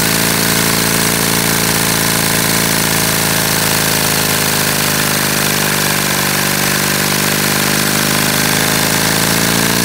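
LEGO vacuum engine running flat out at maximum throttle: a loud, fast, continuous plastic rattle over the rush of air through it, its pitch sagging slightly in the middle and climbing back near the end.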